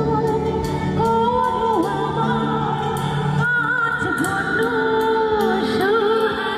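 A woman singing a melody with long held notes into a microphone, over an accompaniment with light percussion from an electronic drum pad.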